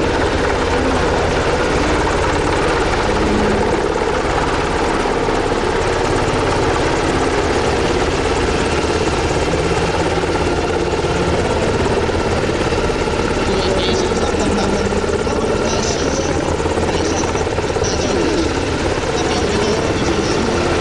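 Sikorsky S-70C helicopter running close by, its rotor beating fast and steadily over its twin turboshaft engines, with no change in level throughout.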